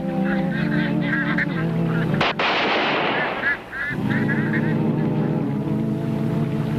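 A single gunshot about two seconds in, with a long echoing decay, over wild waterfowl honking in quick repeated calls and held low chords of soundtrack music.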